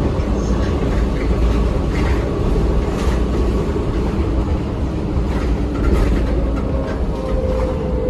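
Cabin noise of a moving New Flyer DE60LFR articulated diesel-electric hybrid bus, with its Cummins ISL diesel and Allison EP50 hybrid drive: a steady low rumble from the drivetrain and road, with short rattles every second or so.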